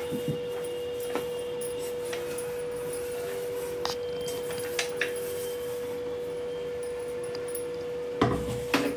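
Light clicks and taps of a stainless-steel mixer-grinder jar knocking against a steel sieve as ground niger-seed powder is emptied into it, over a steady hum. Near the end there is a louder thump.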